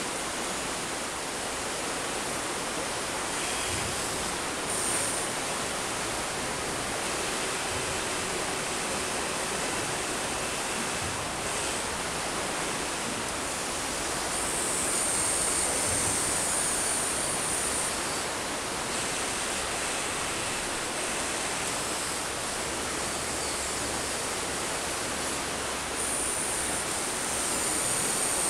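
Steady rushing of flowing water, with a high electric whine from the Huina 1593 RC excavator's motors coming in twice, for a few seconds past the middle and again near the end, as its arm and turret move.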